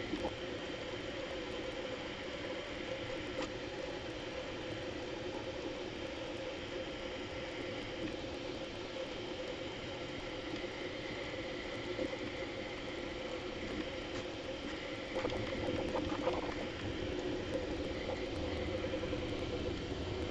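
Bambu Lab A1 3D printer running a print, its stepper motors whining and fans whirring in a busy, fluttering chatter, sped up tenfold. It gets a little louder about three quarters of the way through.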